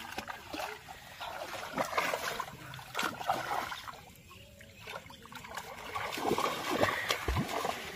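Shallow muddy water splashing and sloshing in irregular bursts as a net on bamboo poles is dragged through it and bare feet wade and stamp in the water.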